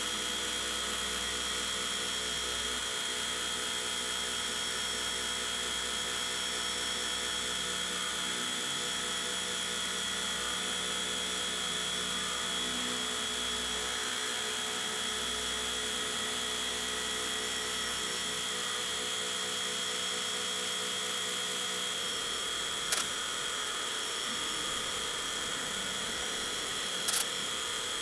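CNC milling machine spindle running with an end mill cutting a pocket into a steel bar, a steady high whine throughout. Two short clicks come near the end.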